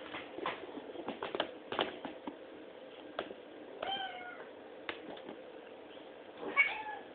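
A cat meowing twice: a short meow about four seconds in and a louder one near the end. Scattered light clicks and taps come before the meows.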